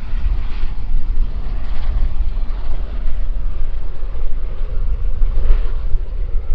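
Aircraft engine noise at an airfield: a steady, loud, low rumble with a fainter hiss above it.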